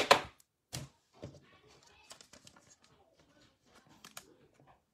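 Football trading cards handled by hand: two short, sharp snaps in the first second, then faint scattered clicks and rustles as the cards are shuffled through.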